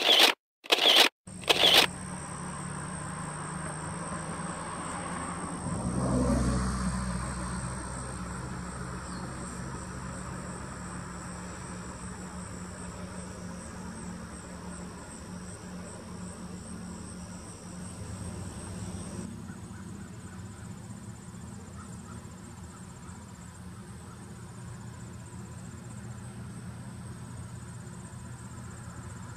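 Three camera-shutter clicks open it, the loudest sounds here. Then comes steady outdoor marsh ambience with insects trilling, and a low rumble swells and fades about six seconds in.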